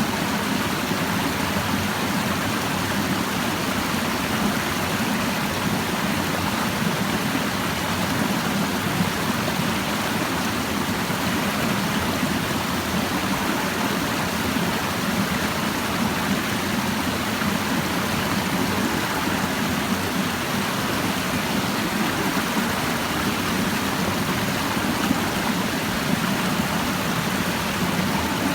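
Clear mountain stream babbling and rushing over rocks, a steady even flow of water.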